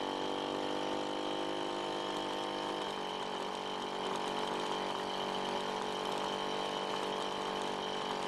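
A work vehicle's engine running steadily at the roadworks, a constant even drone with a thin high whine above it.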